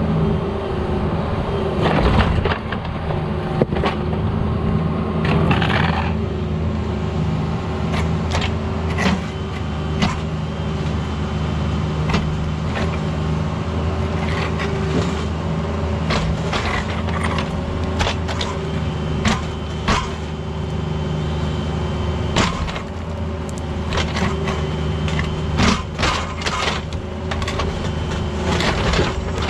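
Cat 304 mini excavator's diesel engine running steadily under load, with irregular sharp cracks and scraping as the bucket breaks up and rips out blacktop, in clusters about 2, 6, 9, 17 and 26 seconds in.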